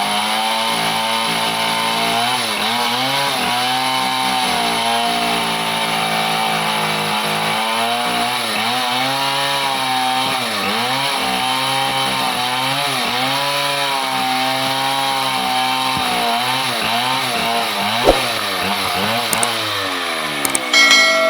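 Two-stroke chainsaw running at high revs in merbau hardwood, its engine pitch dipping and recovering over and over as the chain loads up in the cut. Near the end the revs fall away, with a few sharp knocks.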